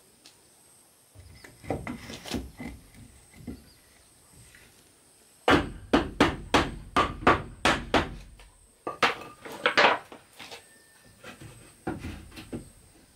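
Hammer striking wood: a quick run of about a dozen blows, three or four a second, the loudest sounds here. Lighter, scattered knocks come before and after.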